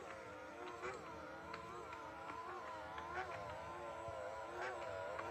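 Small electric gear motor in an animatronic Grogu plush toy whirring as it walks under remote control, its pitch dipping and rising with each stride, with a faint click about every 0.8 seconds.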